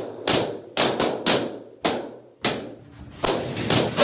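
A quick series of about nine sharp pops, roughly two a second, each fading over a fraction of a second: balloons bursting.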